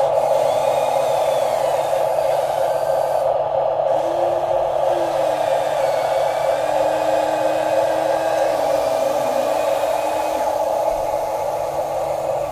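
Electric motors of an RC toy excavator whirring steadily, with a fainter whine that shifts up and down in pitch as different movements start and stop.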